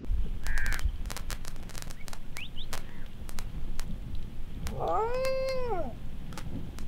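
A wild dingo howls once: a single call of a little over a second that rises and then falls in pitch. It is heard as a call to the rest of its pack.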